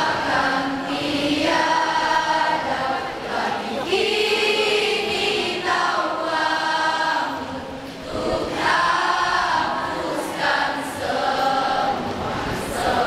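A choir singing together in sustained phrases of about two seconds each, with short breaks between them.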